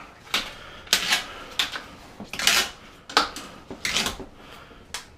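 Irregular sharp clicks and short rustling clatters, about one a second, from hands handling tools and materials; the longest rustle comes a little after two seconds in.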